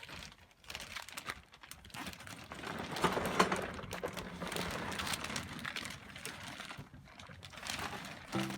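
Rustling and quick light clicks of small items being handled, busiest in the middle stretch.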